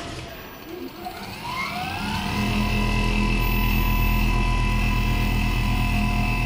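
Richpeace large-format automatic sewing machine with a rotary sewing head starting up: a rising whine of motors spinning up about a second in, levelling off into a steady running hum with a fast even pulse as the head sews and travels across the material.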